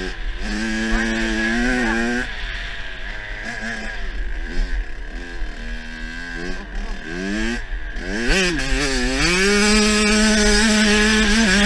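Kawasaki KX85's single-cylinder two-stroke engine under riding load, revving up and dropping back again and again as it pulls through gears and backs off for corners, then held at steady high revs over the last couple of seconds. Wind rumbles on the bike-mounted microphone underneath.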